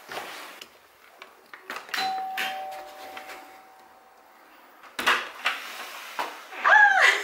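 Two-tone doorbell chime: a higher ding and a lower dong about half a second apart, ringing on and fading over a couple of seconds. Sharp clicks follow about five seconds in, and a voice rises near the end.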